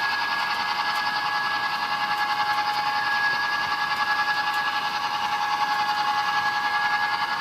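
HO scale Bachmann F7 model diesel locomotive running, its DCC sound decoder giving a steady diesel engine sound through the model's small speaker, with a thin, high, humming tone.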